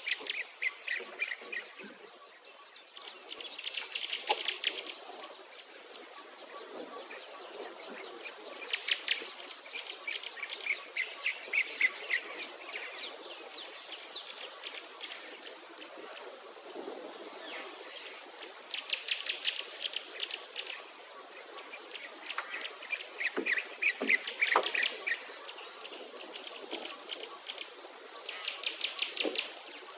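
Summer insects trilling steadily, with a high faint note pulsing about once a second, while birds sing in short bursts of rapid chirps every few seconds.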